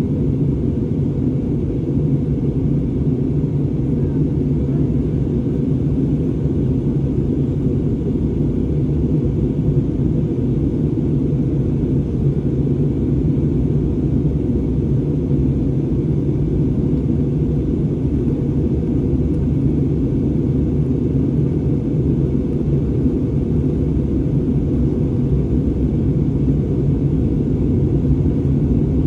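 Steady low rumble of an Airbus A320neo (A320-271N) and its Pratt & Whitney PW1100G geared turbofans, even and unchanging, with a faint low hum in it.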